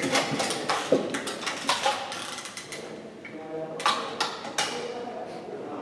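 Match air rifles on a 10 m range: a rapid scatter of sharp clicks and pops, thickest in the first two seconds and again about four seconds in, from shots being fired and rifles being cocked and loaded.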